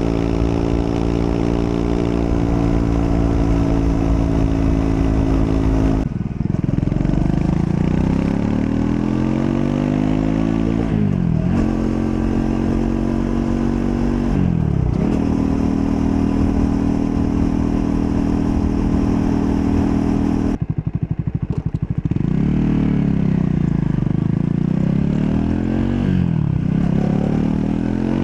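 Triumph Scrambler 400 X's single-cylinder engine under way, pulling up through the revs with sharp drops at gear changes about six, eleven and fifteen seconds in. It then holds steady revs for a few seconds, comes off the throttle at about twenty seconds, and the revs rise and fall again.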